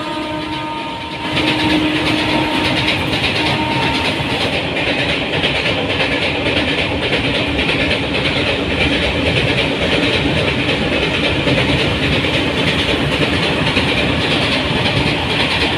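Freight train of open wagons rolling past on the rails, a steady clatter of wheels. A locomotive horn note fades out about a second in.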